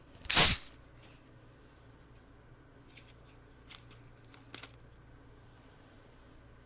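A fizzy drink can cracked open: one short, loud hiss about half a second in, followed by a few faint clicks and taps.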